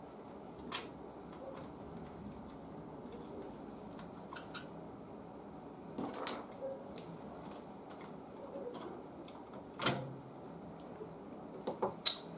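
Light, scattered clicks and taps of hand tools and wire being worked during point-to-point wiring, with a sharper click about ten seconds in and a quick run of clicks near the end.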